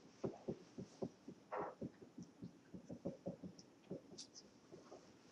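Dry-erase marker writing on a whiteboard: a quick, faint run of irregular taps and short strokes, with a few brief high squeaks.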